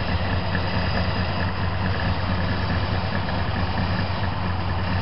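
Carbureted AMC 360 V8 idling steadily, pulling a steady 16 to 17 inches of vacuum at idle.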